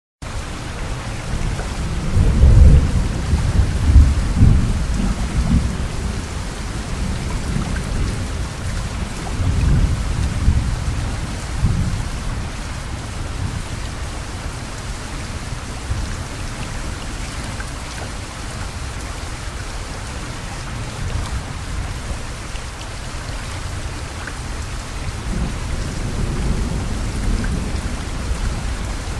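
Heavy rain falling steadily, with deep low rumbles swelling up a couple of seconds in, again around ten seconds in, and near the end.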